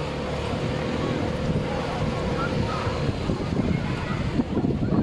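Motorboat running on open water, its engine hum fading out about three seconds in, with wind buffeting the microphone and water rushing past the hull.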